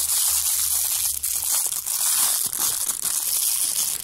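Thin clear plastic bag crinkling and crackling steadily as hands squeeze and open it around small plastic kit parts.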